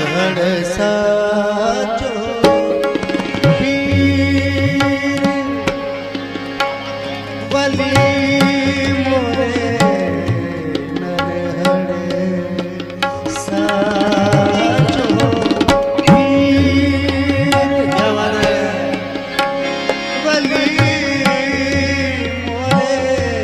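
Qawwali music: tabla drumming under sustained held notes and a winding melody line.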